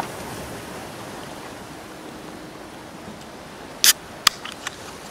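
Steady wash of sea surf. A couple of sharp clicks come about four seconds in, with a few fainter ones just after.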